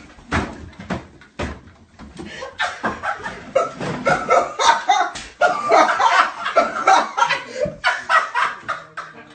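People's voices: loud laughter and vocal noises without clear words, in quick, repeated bursts.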